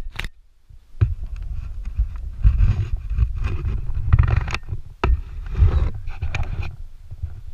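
Rustling, scraping and sharp knocks of a climbing harness, slings and carabiners being handled right against the camera, over a low, uneven rumble. One strong knock comes about a second in and another about five seconds in.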